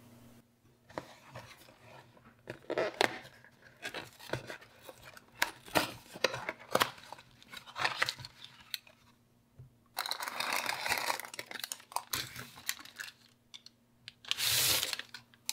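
Cardboard pie box and its paper wrapper being opened by hand: a run of crackles and scrapes, then longer tearing and rustling about ten seconds in and again near the end.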